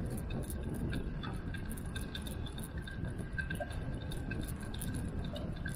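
Riding noise from a moving bicycle: a steady low rumble of wind and tyres on pavement, with irregular light ticking several times a second and a faint steady high whine.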